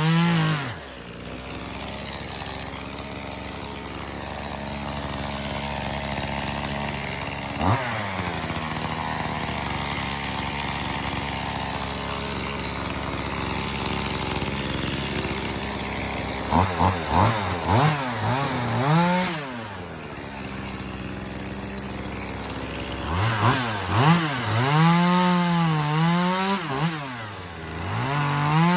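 Echo CS-2511T small two-stroke top-handle chainsaw: it drops from a high rev to idle, idles for a long stretch with one quick blip, then is revved in short bursts. Near the end it runs at high revs with the pitch sagging and recovering, as it does when the chain bogs in a cut through wood, and finishes on a steady high rev.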